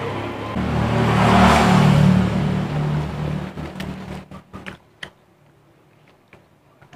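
A motor vehicle engine running loudly, swelling to a peak about one and a half seconds in and fading away after about three seconds. A few faint clicks and taps follow as fingers pick at fried fish on a plate.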